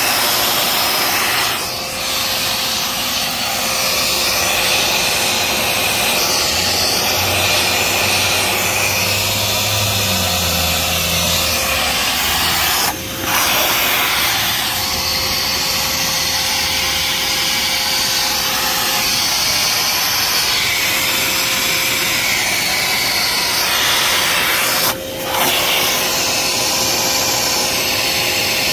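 Loud steady rushing hiss of a spray or air-blast cleaning tool working on cylinder heads, cut off briefly twice as the trigger is let go.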